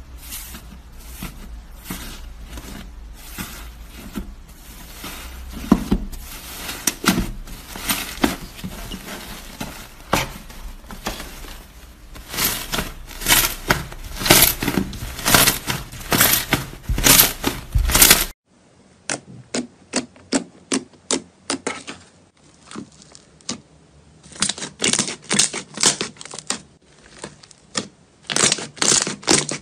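Hands squeezing and poking slime, making a rapid string of sticky clicks and pops. About two-thirds of the way in the sound changes to a different slime, with sparser, separate pops.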